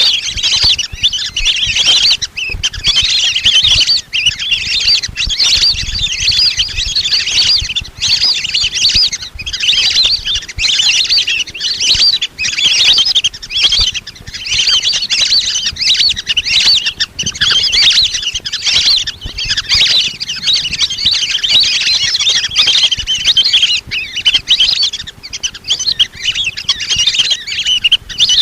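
Lesser whistling ducks calling: a continuous chorus of high, thin, chirping whistles from several birds overlapping without a break.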